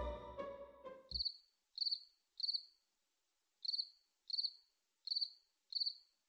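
A single cricket chirping: seven short, high chirps, most about two-thirds of a second apart with a longer pause in the middle. The last notes of the music fade out about a second in, before the chirping starts.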